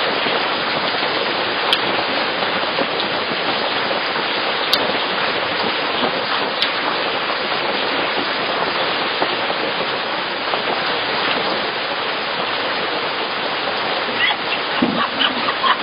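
A steady, even hiss like falling rain, with a few faint sharp clicks.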